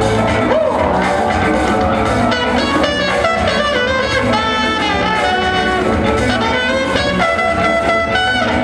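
Loud music with guitar and drums.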